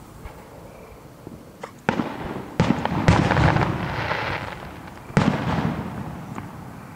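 Aerial fireworks shells bursting overhead: three sharp booms about two, two and a half and five seconds in, each trailing off with a long rumble, the loudest around three seconds in.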